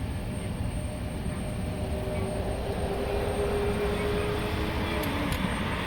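Steady low vehicle rumble with a faint humming tone that dips slightly in pitch about five seconds in.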